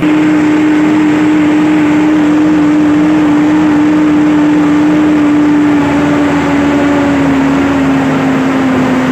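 Kirloskar diesel engine of a transit mixer held at full throttle, a loud steady engine note that sags slightly in pitch over the last few seconds. The revs drop under full throttle, the same fault that comes with white smoke, which the mechanic suspects is a diesel supply problem.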